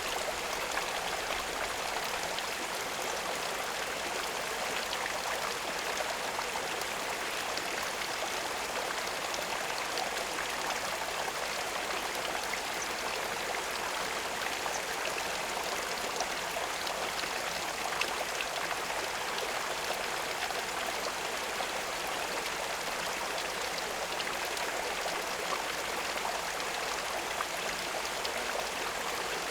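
Steady running water, a continuous trickling flow with small scattered splashes and drips.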